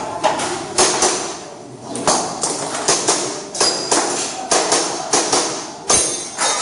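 Airsoft pistol firing a string of a dozen or so sharp shots, mostly in quick pairs a fraction of a second apart, during a timed action-shooting stage.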